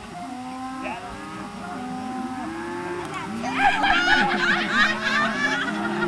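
Several people talking and calling out at once, with children's shrill shouts growing louder about halfway through.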